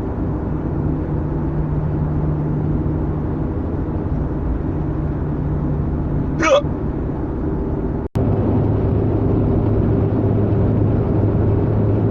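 Steady car-cabin engine and road hum with a single short hiccup about halfway through. About two-thirds in the sound cuts out for a moment, and afterwards the hum is deeper and a little louder.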